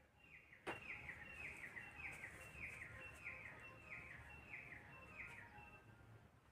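A small bird calling over and over, about two short falling chirps a second, with a single sharp click under a second in.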